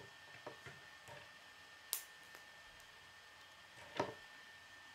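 Plastic K'nex rods and connectors clicking as they are handled and snapped together: a few light clicks, then two sharper snaps about two seconds in and about four seconds in, over a faint steady hiss.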